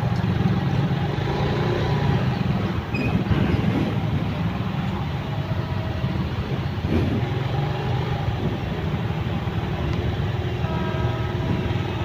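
Motorcycle and car engines idling in stopped traffic, a steady low rumble. A faint repeating tone starts near the end.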